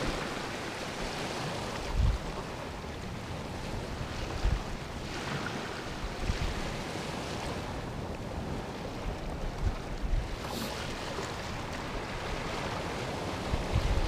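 Barents Sea surf washing in and out among shoreline rocks, a steady hiss of foam with swells rising and falling and a sharper splash about ten and a half seconds in. Wind buffets the microphone now and then with low thumps.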